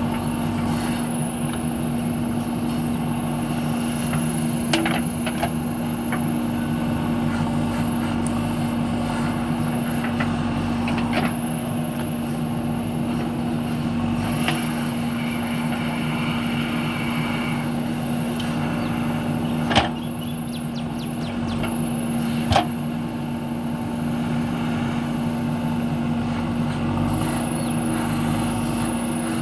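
JCB backhoe loader's diesel engine running steadily, with a few sharp knocks from the working machine, the two loudest close together about two-thirds of the way through.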